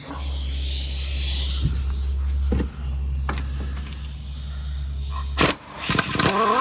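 Metal clinks and clanks of socket tools being handled at the wheel hub, a few single knocks and then a quick cluster near the end. Under them runs a steady low hum that stops about five seconds in.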